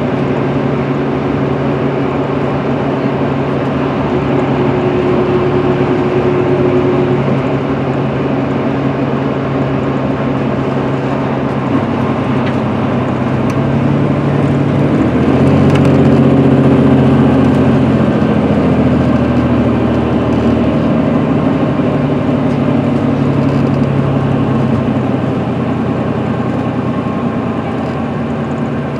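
Inside the passenger cabin of a 2010 MCI D4500CL coach cruising at highway speed: its Cummins ISM diesel drones steadily under road and tyre noise. About halfway through, the engine note shifts and grows a little louder.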